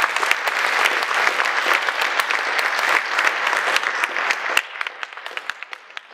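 Audience applauding, a dense run of clapping that thins out and fades over the last second or two.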